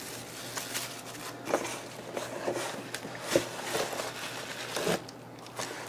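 Bubble wrap and plastic bags rustling and crinkling as packed parts are handled and lifted out of a cardboard box, with a few light knocks as items are set down.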